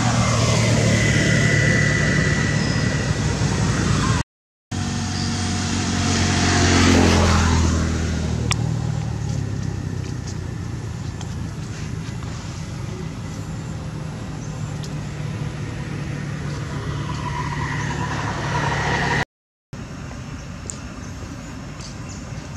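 Motor vehicle traffic: a steady engine hum, with one vehicle passing close by about seven seconds in, swelling and falling in pitch as it goes. The sound cuts out briefly twice.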